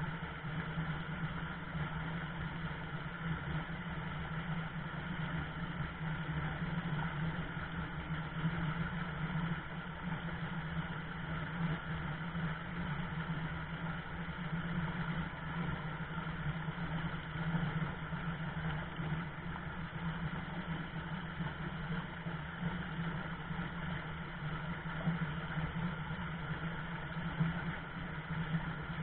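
Shallow river rapids rushing steadily over rocks, an unbroken even rush of water.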